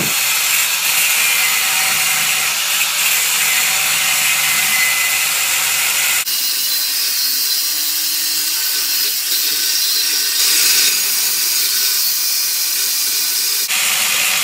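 Handheld angle grinder grinding steel, a steady grinding noise strong in the high range. The sound changes abruptly about six seconds in and again near the end.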